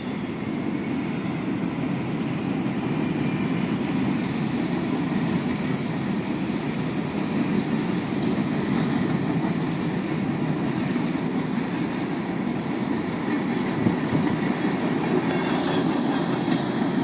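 Norfolk Southern freight train rolling past, its cars giving a steady rumble with rail noise.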